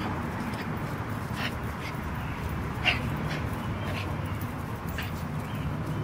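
A small dog and a puppy play-fighting, with several short yips and whimpers, the loudest about three seconds in.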